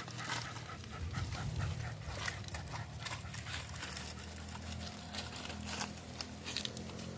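A group of small dogs playing on grass strewn with dry leaves: soft panting and scuffling, with irregular rustling ticks and no barking.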